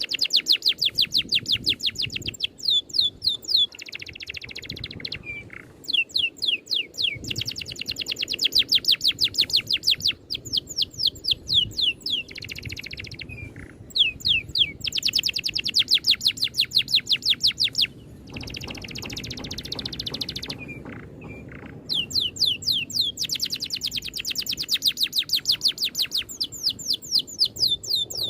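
A songbird singing a rolling song: runs of a few seconds of fast, evenly repeated high notes that each drop sharply in pitch, alternating with shorter buzzy, rattling passages, with brief pauses between phrases.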